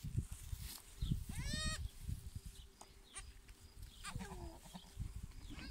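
Goat bleats: a high bleat about a second and a half in and a shorter falling call about four seconds in, from a nanny goat and her newborn twin kids, over low rumbling noise.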